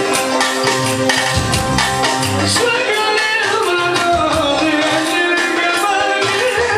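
Loud dance music playing, with a percussion beat and a melody line that bends and wavers in pitch from about three seconds in.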